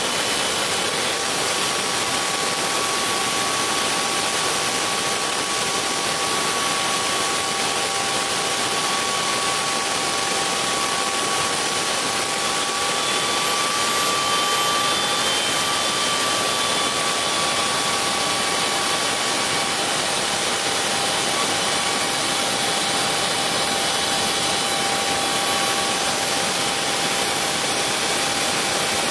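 Tiernay TT10 small gas turbine running steadily while driving a generator: an even, loud rush of air with a few steady high whining tones.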